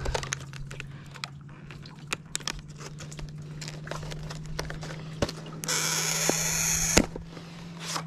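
Cardboard and plastic wiper-blade packaging crinkling and crackling as it is handled and opened, with many small clicks and rustles. About three-quarters of the way through comes a louder rasping slide, lasting about a second and ending in a sharp snap, as the blade in its plastic sleeve is pulled out of the box. A steady low hum runs underneath.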